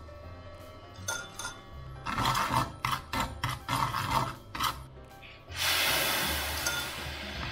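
Black plastic slotted spatula scraping and knocking on a stainless steel frying pan, stirring sugar to caramelize it, in a run of short strokes. Then a steady hiss for the last two seconds, over background music.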